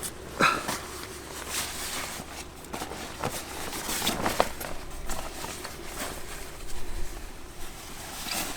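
Irregular rustling, shuffling and a few light knocks of a person moving about and handling clothes and gear while changing.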